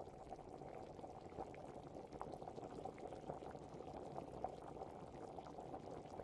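Faint sizzling and bubbling of food cooking in a clay pot over a wood fire, with small scrapes and ticks of a wooden spatula stirring it.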